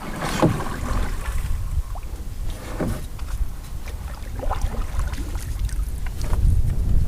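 Canoe paddle strokes in the water, a splash roughly every two seconds, over a low rumble of wind on the microphone.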